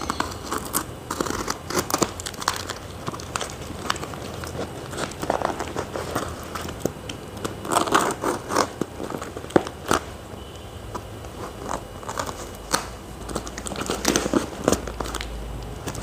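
Box cutter slicing along the packing tape of a cardboard shipping box: irregular crackling, scraping and tearing of tape and cardboard, with an occasional sharp click.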